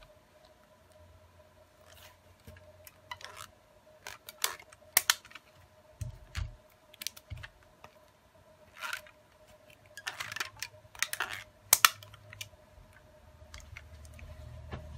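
Rubber bands being stretched around a smartphone and snapped against its screen and frame to clamp a freshly glued replacement display, giving scattered sharp snaps and clicks with handling noise and a couple of dull knocks about six seconds in. A faint steady hum runs underneath.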